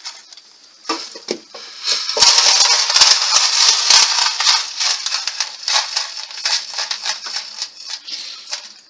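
A wheat-and-corn grain mix poured into a pigeon feeder trough: a dense rattling hiss of kernels starting about two seconds in, easing off into scattered clicks near the end.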